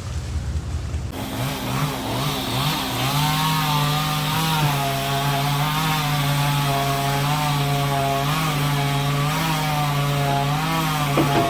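Two-stroke chainsaw starting about a second in, revving up, then held at high revs with its pitch wavering slightly until it stops just before the end.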